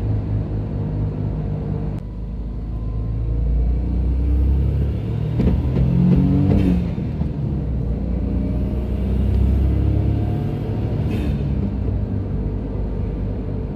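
Daihatsu Terios Kid accelerating in second gear, the engine running louder from about three seconds in. About five to six seconds in comes a harsh rattling judder, 'gagaga', from under the floor, an abnormal noise that the owner cannot trace.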